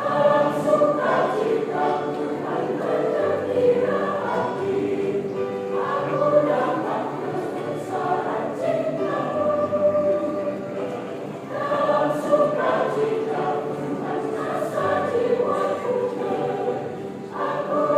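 A church choir singing a Christmas hymn in parts, with sustained sung notes over a steady accompaniment.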